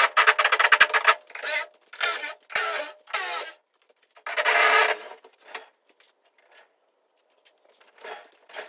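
Screws being backed out of a plywood shipping crate with an 8 mm socket: a fast run of rapid, even clicking, then several short bursts of clicking and grinding and a longer one about halfway through. There is a brief pause before fainter bursts near the end.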